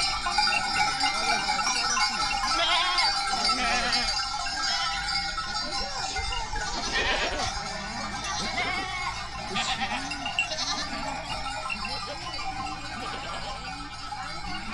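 A large herd of goats on the move, many animals bleating over one another, with bells ringing among them.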